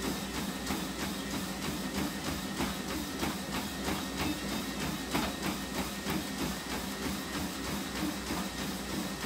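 Treadmill in use during a steady run: its motor and belt whir continuously while running footfalls thud on the deck about three times a second.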